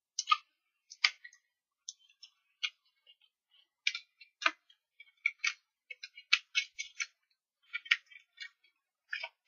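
Paper and cardstock being handled: a die-cut paper label fitted with foam adhesive dots is turned and pressed in the fingers, giving small irregular clicks and rustles.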